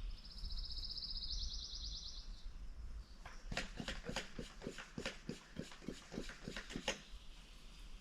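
A small bird's rapid, high trill, which steps slightly in pitch midway. It is followed about a second later by a run of sharp ticks, roughly four or five a second for about three seconds, over a low steady hum.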